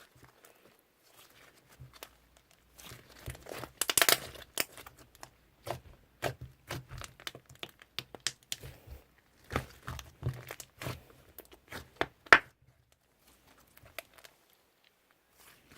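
Slime being squeezed and pressed by hand, giving irregular crackles and small pops, with a dense cluster about four seconds in and a single sharp pop near the end.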